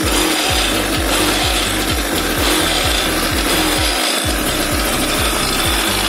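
A 50cc two-stroke engine on a homemade motorized scooter runs steadily and loudly through its new expansion-chamber exhaust.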